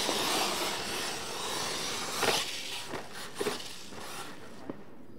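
Radio-controlled monster truck tearing across loose dirt: a hiss of tyres spinning and throwing dirt that fades over the first few seconds, with a few sharp knocks a little after two seconds in and one more near the end.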